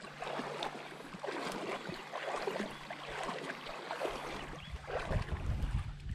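Footsteps wading through shallow river water, with irregular splashing. A low rumble comes in near the end.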